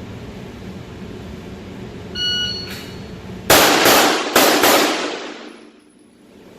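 A shot timer's electronic start beep, then about a second later a Glock 17 9mm pistol fires four shots in two quick pairs, each with an echoing tail.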